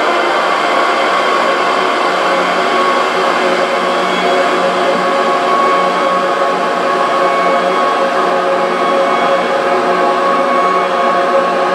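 Drone music: a loud, unbroken wash of noise with many held tones layered through it, and a low hum that grows stronger about two seconds in.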